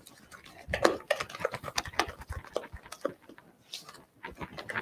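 Creamed butter-and-sugar cookie dough being stirred by hand in a mixing bowl: irregular soft knocks and scrapes of the stirring utensil against the bowl, a few a second.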